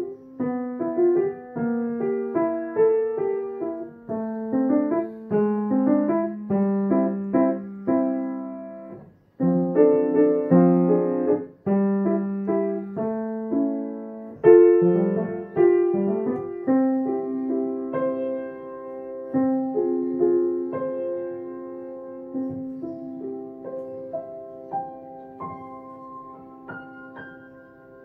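Yamaha grand piano playing a gentle waltz with both hands. There is a brief pause about nine seconds in. The music grows softer through the second half and ends with notes stepping up into the high register, left to ring.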